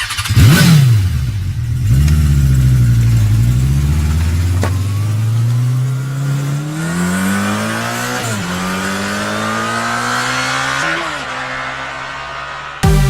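Vehicle engine revving and accelerating through the gears: its pitch climbs steadily, drops sharply about 8 seconds in and again about 11 seconds in as it shifts up, then cuts off abruptly near the end as electronic music starts.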